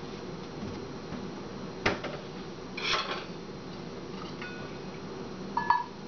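A Congo African grey parrot busy on a kitchen counter: a sharp tap about two seconds in, a brief rustle a second later, and a short high squeak near the end.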